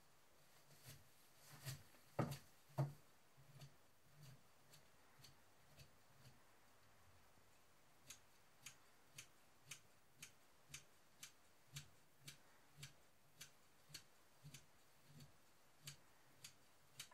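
Steady, even ticking, about two ticks a second, faint at first and sharper from about halfway through. A few dull knocks come in the first three seconds.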